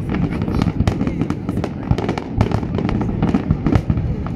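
Aerial fireworks going off in quick succession: many sharp cracks and pops, several a second, over a steady low rumble of bursts.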